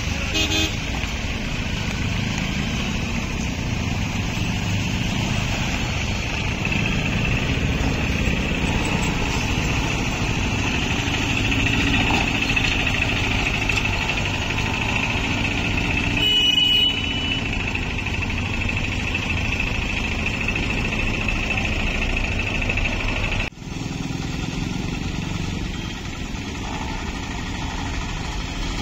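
Auto-rickshaw and motorbike engines running steadily at low speed as they pick their way through a potholed road, with a brief beep about two thirds of the way through.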